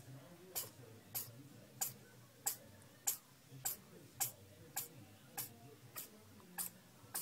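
A steady series of short, sharp clicks, evenly spaced a little under two a second, over a faint low hum.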